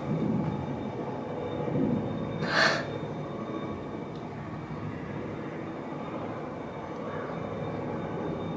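Steady low rumbling background noise, with two soft low bumps near the start and a short hissing rustle about two and a half seconds in.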